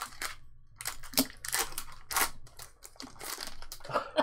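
Wrapper of an Upper Deck Extended Series hockey card pack crinkling and being torn open, in several short rustling bursts.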